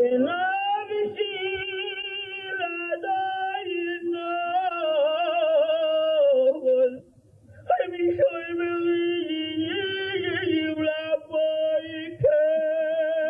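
A man's voice chanting a prayer into a microphone in long, wavering held notes, breaking off briefly about seven seconds in and then going on.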